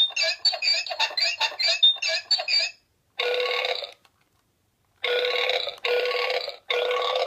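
Toy sound machine playing its sound effects: a rapid run of repeated warbling beeps for about two and a half seconds, then after a pause a series of buzzing tones of about a second each, separated by short gaps.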